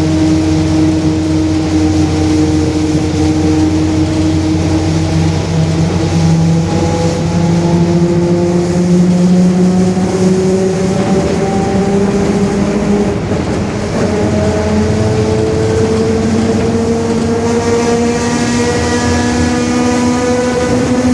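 Mercedes-Benz OF-1721 BlueTec 5 bus differential howling very loud: a whine that climbs slowly and steadily in pitch as road speed builds, over the steady low drone of the diesel engine.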